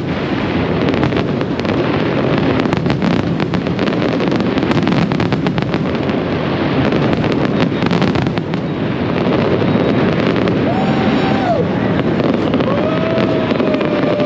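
Fireworks going off in rapid succession: dense crackling and popping over a continuous rumble of bursts, thinning out after the first half. A couple of held whistle tones sound near the end.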